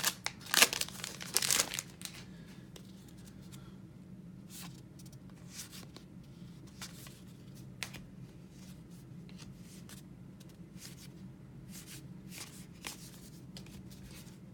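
Trading-card pack wrapper crinkling loudly for the first couple of seconds, then soft scattered clicks and slides of cards being handled and flipped through, over a low steady hum.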